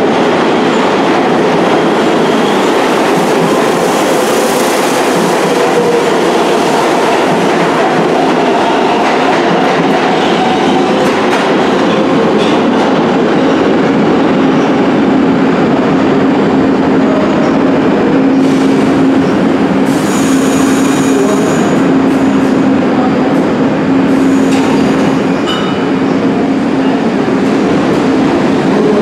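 New York City subway train running on the Lexington Avenue Line, its wheels clattering over the rail joints. A steady low hum sets in about halfway through.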